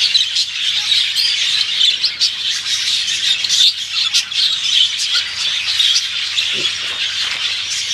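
A dense chorus of many birds calling at once: high-pitched chirps and chatter that overlap continuously without a break.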